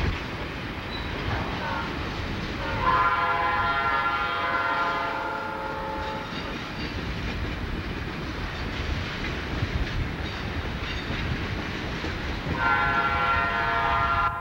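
Norfolk and Western 1218's train rolling by with a steady rumble and rail clatter, its whistle sounding twice in a chord of several tones: a blast of about three seconds starting about three seconds in, and another near the end.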